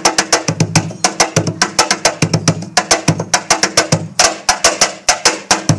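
Handmade Peruvian cajón with a solid cedar front plate and a laurel and canela negra body, struck by hand in a fast, steady rhythm that mixes deep bass tones with sharp slaps.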